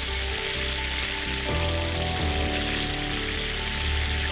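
Slow background music with sustained notes and a deep bass, over the steady sizzle of beef shanks searing in oil in a cast-iron wok.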